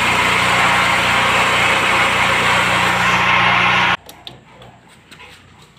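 Diesel generator running loud and steady with a low hum, cutting off abruptly about four seconds in. Afterwards a few faint clicks as buttons on a generator control panel are pressed.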